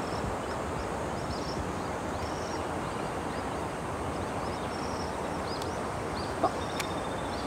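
Steady rush of fast-flowing reservoir water around a wading angler, with small birds chirping in short high notes over it. A single short knock sounds about six and a half seconds in.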